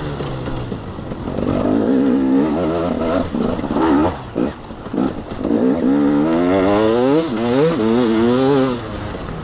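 KTM 250 EXC single-cylinder two-stroke enduro engine revving hard and unevenly under racing throttle. Its pitch swings up and down through the gears, falls away briefly about four seconds in, then climbs again in quick rising sweeps before easing off near the end.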